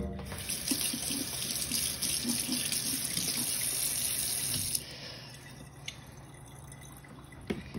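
Kitchen tap running into a sink in a steady rush, shut off after about five seconds.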